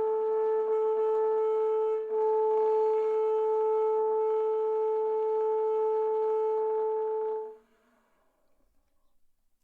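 Saxophone played by a beginner, holding one long steady note. It breaks off briefly about two seconds in, is sounded again at the same pitch, and stops near the end.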